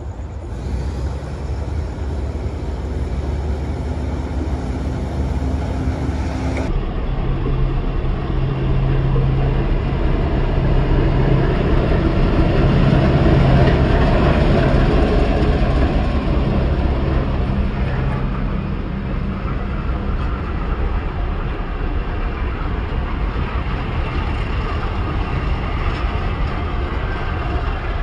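D19E diesel-electric locomotive approaching and passing close by, its diesel engine running with a steady low drone that grows louder toward the middle and eases off, followed by the rumble of the train it hauls. The sound changes abruptly after several seconds, like a cut.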